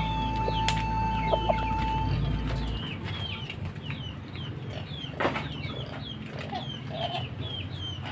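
Free-roaming chickens clucking, with repeated high chirps, about three a second, running on. A few sharp knocks come through, the loudest about five seconds in.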